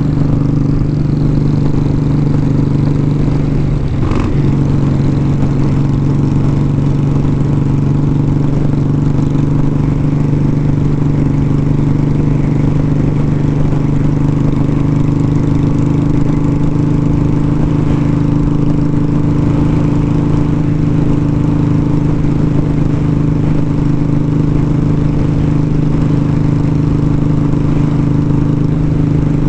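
A 1200cc motorcycle engine running steadily at riding speed, with wind noise on the microphone. About four seconds in the engine note drops a little, then holds even.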